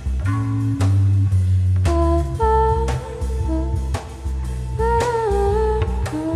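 Background music: a steady beat with bass under a melody of held notes that slide between pitches.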